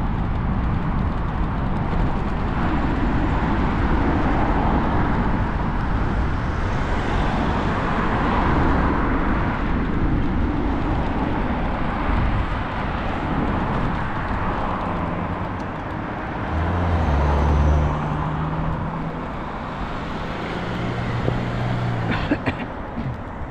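Wind rushing over the microphone of a moving bicycle, with road traffic passing alongside; a motor vehicle's engine hum swells to the loudest point about 17 seconds in and comes again a few seconds later. A few sharp clicks near the end.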